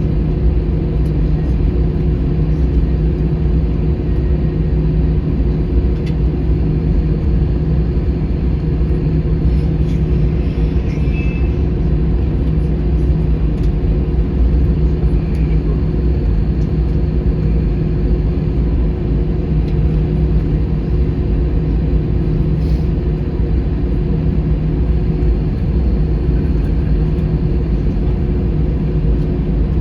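Airbus A321 cabin noise on the ground: a steady low rumble from the engines at low taxi power, with a constant droning hum, heard from inside the cabin.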